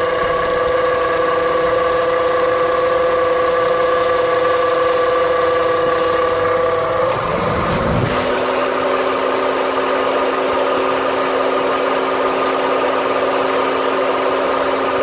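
2008 Honda Civic idling with a steady hum. About halfway through, the note shifts with a short rising sweep into a lower steady drone. This is the noise the owner hears, with the engine shaking, after the AC compressor clutch shuts off.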